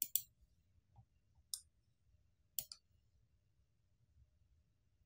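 Computer mouse clicking: about six short, sharp clicks in the first three seconds, some in quick pairs, then quiet.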